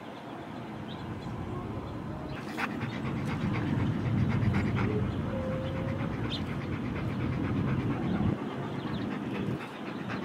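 A German Shepherd mix dog panting in quick, steady breaths, louder from about two seconds in.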